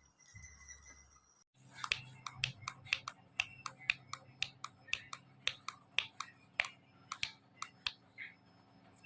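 Rapid sharp tapping, about three to four taps a second, over a faint low hum; it starts about a second and a half in and stops shortly before the end.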